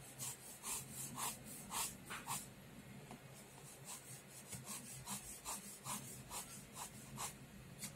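Pen scratching on sketchbook paper in a faint series of short, light strokes, about two to three a second, as guide lines are sketched.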